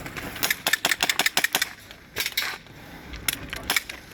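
Airsoft guns firing: a quick string of sharp shots starting about half a second in, then a few single shots near the end.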